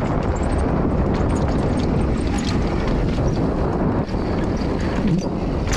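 Wind buffeting the camera microphone as a mountain bike descends a dirt trail at speed, with the steady rumble of the tyres on the dirt and scattered clicks and knocks from the bike rattling over small rocks and bumps.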